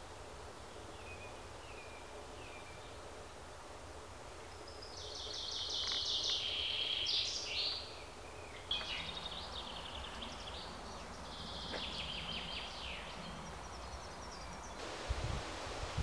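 Bird calls over a steady outdoor hiss: two long runs of rapid high notes, the first starting about five seconds in and the loudest, with fainter short notes earlier.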